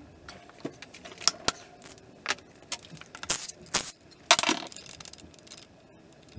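Metal hand tools clinking and clanking as the torque wrench and clutch locking tool come off a motorcycle's clutch hub: irregular sharp knocks, with a short metallic clatter about four seconds in.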